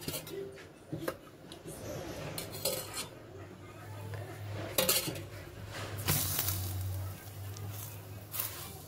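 Metal utensils knocking and clinking against pots and the tawa while a roti cooks, about five separate strikes over a low steady hum.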